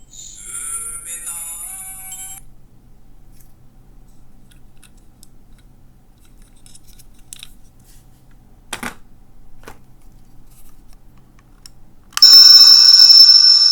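Small electronic sound-effect toy from a capsule machine playing a short tinny jingle with gliding notes. After a quiet stretch with a few clicks, a loud shrill alarm-like electronic tone starts near the end.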